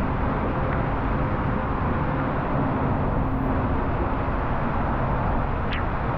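Seljalandsfoss waterfall's steady roar of falling water, with a brief higher hiss near the end.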